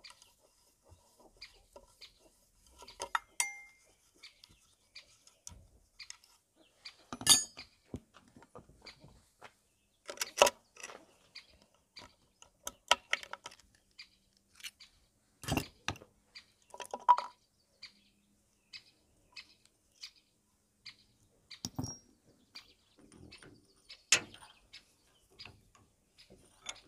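Metal hand tools clinking and tapping against scooter engine parts (the aluminium crankcase and the kickstart gear and ratchet) during assembly. Irregular small clicks, with a few louder sharp knocks, one of which rings briefly.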